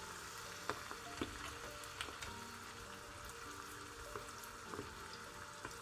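Olive oil frying in a clay pot with oyster mushrooms, garlic and hot peppers: a faint steady sizzle with scattered small pops.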